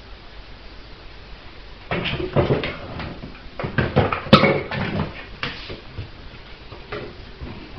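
Border collie puppy playing with a toy: a flurry of knocks and clatters starting about two seconds in, the loudest a little past the middle, dying down near the end.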